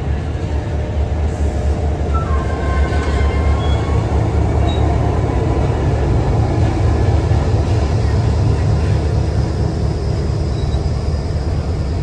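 VRE commuter train rolling slowly by as it arrives, its trailing MPI MP36PH-3C diesel locomotive's 16-cylinder EMD engine giving a heavy, steady rumble that grows louder as the locomotive draws level. A brief metallic squeal from the wheels and brakes comes about two seconds in.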